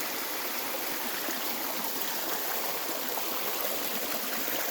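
Running water rushing steadily, with no change or break.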